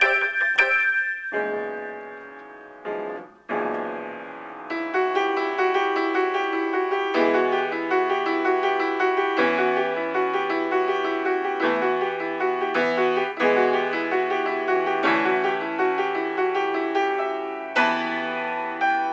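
Piano improvisation. A few struck chords ring out and fade in the first seconds, then a steady run of quick repeated notes plays over held bass notes.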